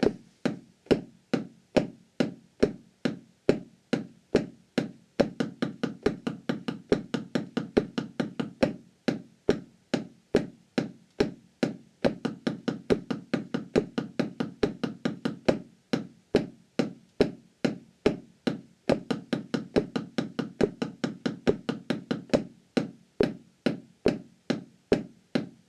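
Drumsticks playing a single stroke roll on a rubber practice pad: a steady, even stream of dull taps, alternating hands, which gets denser a few seconds in.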